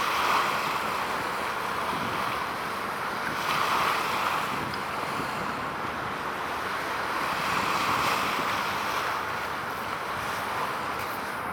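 Sea water washing and lapping with wind, a steady rush that swells about every four seconds as waves come in.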